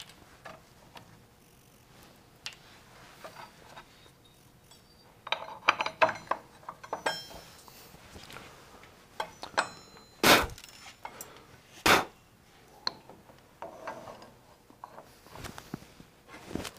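Metal clinks and knocks of a small injection mold and hand tools being handled on a workbench. A quick run of clinks, some ringing briefly, about five to seven seconds in, and two sharper knocks about ten and twelve seconds in.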